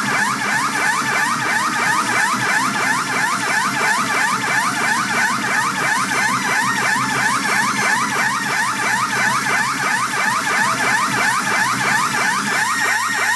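Pachinko machine's jackpot sound effect: a looping electronic siren of quick rising sweeps, about three a second, over a steady high tone.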